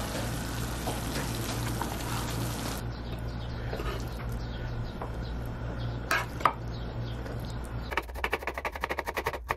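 A knife chopping a small red onion on a wooden board near the end, in quick even strokes about six a second. Before it, a dense sizzling hiss from the masala chicken frying in the pan over a steady low hum, and a couple of sharp knocks about six seconds in.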